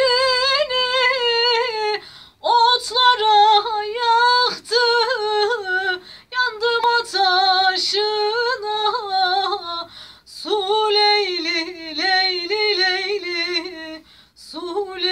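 A woman singing a Turkish song unaccompanied, in long ornamented phrases whose held notes waver and turn. Short breaks for breath come about every two to four seconds.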